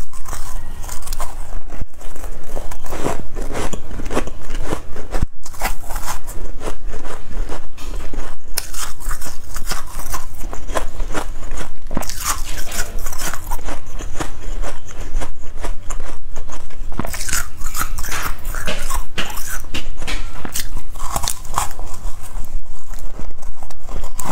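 Freezer frost being bitten and chewed close to the microphone: loud, dense crunching that goes on without a break.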